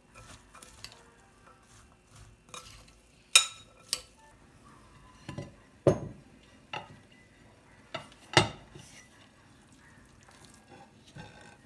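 Kitchen dishes and utensils clinking and knocking as they are handled: about eight sharp separate hits, the loudest about three and a half seconds in and again at about eight and a half seconds.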